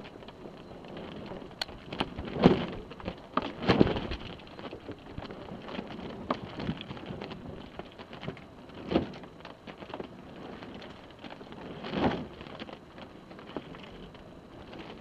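Water sloshing and splashing against a sailboat's hull on a calm sea, in irregular surges a few seconds apart, with a few sharp ticks.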